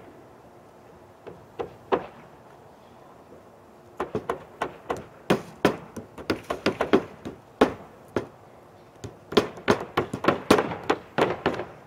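Hand hammer driving nails into a roof deck: a few scattered strikes at first, then from about four seconds in, quick runs of blows several a second, with a short break before the hammering resumes near the end.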